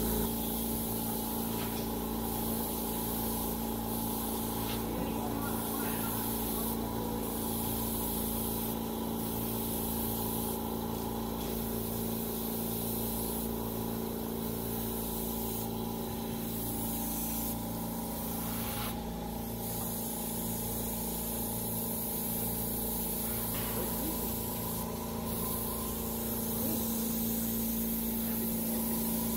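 Small airbrush compressor humming steadily, with short, repeated hisses of air from airbrushes spraying paint.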